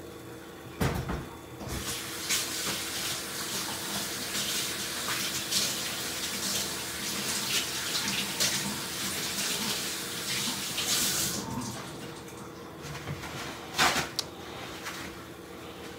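Water running from a kitchen tap for about ten seconds, with a knock just before it starts and another near the end.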